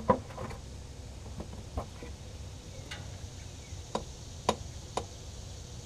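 Several separate sharp metal clicks and knocks from a hand wrench working the 19 mm oil drain plug on a Ford F-450's oil pan; the plug is very tight.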